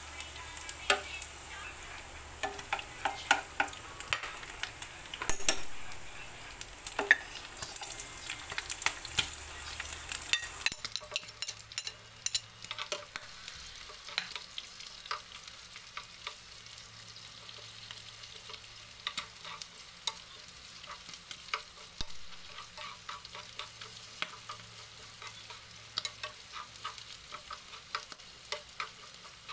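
Ground pork with minced garlic, then chopped red onion, sizzling in a nonstick frying pan. A metal spoon stirs and scrapes through it, with frequent clicks and taps against the pan.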